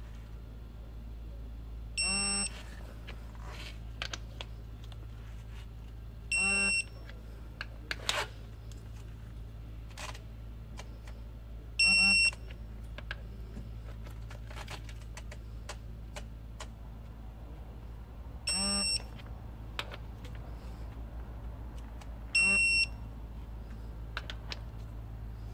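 Snap-on digital torque wrench beeping as it reaches the set 20 ft-lb on the front rocker-arm bolts of a Volvo D13 engine. There are five short beeps a few seconds apart, with faint clicks between them, over a steady low hum.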